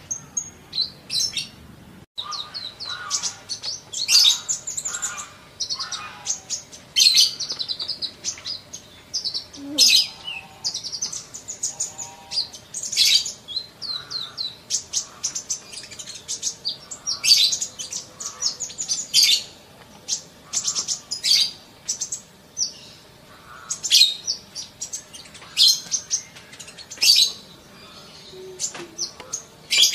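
Sunbird (kolibri) song: rapid, high-pitched chirps and short trills in quick bursts, repeating with hardly a pause.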